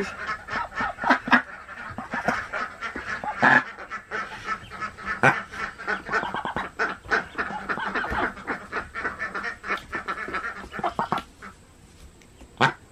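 Golden 300 duck hen giving rapid, harsh quacks at close range, a defensive call while she guards her newly hatched ducklings. The calls stop about eleven seconds in, and one loud sharp sound comes near the end.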